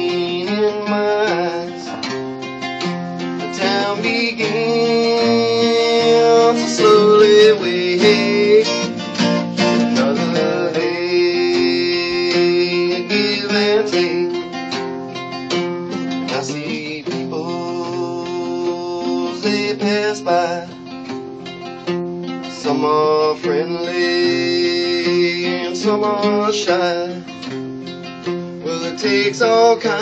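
Two guitars playing a tune together, picked and strummed, with a few notes sliding in pitch here and there.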